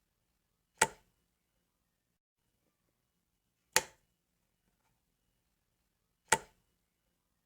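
Light switch clicking, three single sharp clicks a few seconds apart.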